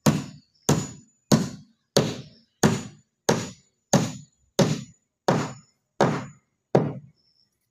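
Hammer driving nails into a wooden formwork box: eleven steady blows, about three every two seconds, each with a brief high metallic ring. The blows stop shortly before the end.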